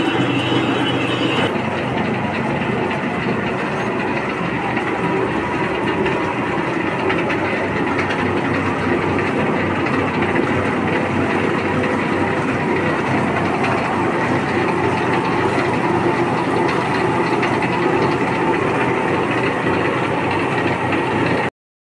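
Large engine lathe running, with a steady, dense mechanical clatter. A higher whine drops out about a second and a half in. The sound stops abruptly near the end.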